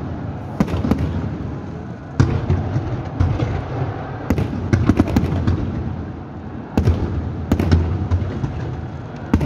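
Aerial fireworks bursting: sharp bangs and crackles come in irregular clusters, about a second in, near two seconds, between four and five seconds, and again around seven to eight seconds and near the end, over a steady low rumble.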